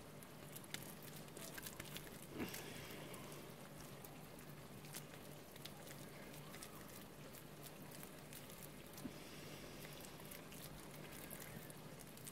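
Faint wet squishing and small sticky clicks of hands pressing and patting minced chicken around a boiled egg, irregular, over a low steady hum.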